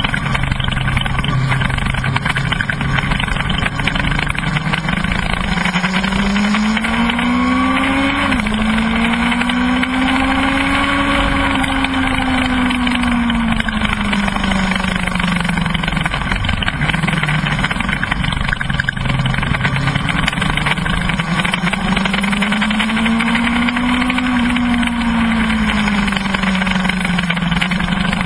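Kawasaki ZX-12R inline-four engine under way at track speed, with heavy wind rush on the bike-mounted microphone. The engine note climbs, drops suddenly about eight seconds in as a gear is changed, then rises and falls slowly twice as the throttle is rolled on and off.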